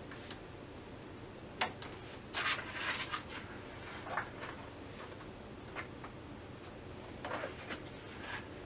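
Scattered light clicks and short crinkly rustles of plastic and thin sheet as hands handle the edge of an LCD TV panel in its frame, with a cluster about two and a half seconds in and another near the end.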